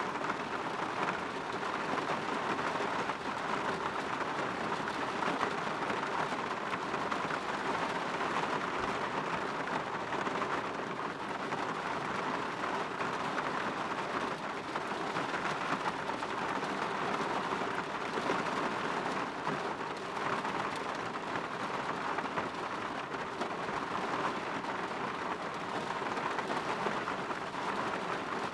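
Steady rain, a dense even patter of drops with no lulls or surges.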